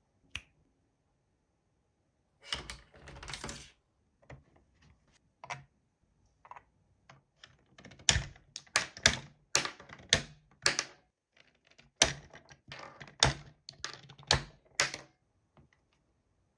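Hard plastic pieces of a Trolls Mount Rageous toy playset being handled: a short rustle a few seconds in, then a quick run of sharp clicks and taps from about halfway through as parts are moved and set in place.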